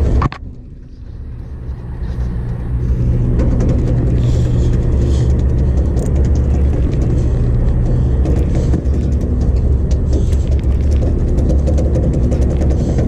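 Boat engine running with a steady low drone. The level drops sharply just after the start and climbs back over about two seconds.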